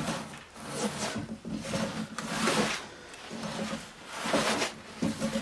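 Veritas scrub plane cutting along a Douglas fir plank, each push a rasping stroke of the thick, cambered blade tearing off scalloped shavings for rough stock removal. Several strokes follow one another, one every second or so, the loudest in the middle.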